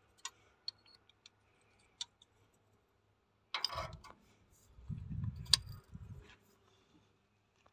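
Wrench ticking and clinking against metal fittings on an excavator's hydraulic pump as a hose fitting is worked. A few light clicks come in the first two seconds, then a rustle and low rumbling from about three and a half seconds, with one sharp clink in the middle of it.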